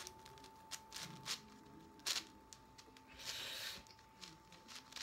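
QiYi Wuji 7x7 speed cube being turned by hand: scattered quiet clicks of the layers and a longer sandy scrape of a turn a little past three seconds in.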